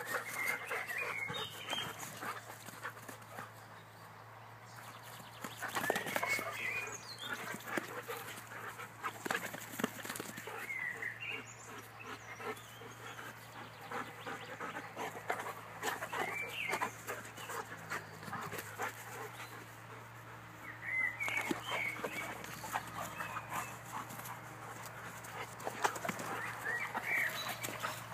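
Two dogs play-fighting on grass: scuffling and panting, with brief dog vocalisations every few seconds.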